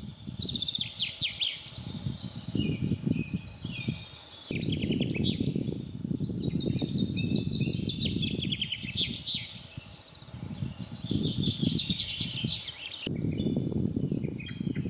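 Several songbirds singing in a forest, with quick trills and short down-slurred notes, over an uneven low rumbling noise. The sound changes abruptly twice, as if spliced.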